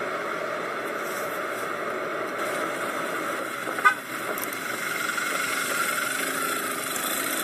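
Steady noise of freeway traffic, with a short vehicle horn toot about four seconds in.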